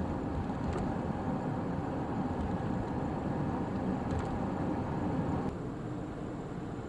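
Steady road and engine noise of a moving car heard from inside the cabin, a low rumble and hiss, which drops a little in level about five and a half seconds in.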